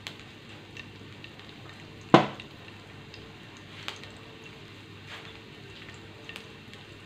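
Chopped garlic and cumin seeds frying in hot peanut oil in a nonstick pan: a quiet steady sizzle with scattered small pops, and one louder click about two seconds in.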